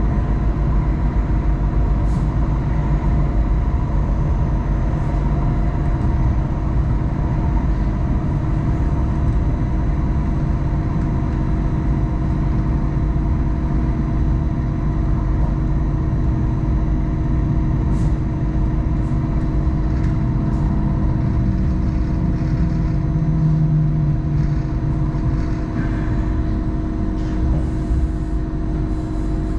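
Hong Kong Light Rail Phase I train running along the track: a steady low rumble with steady hum tones from the drive, a few light clicks over the top, easing slightly near the end.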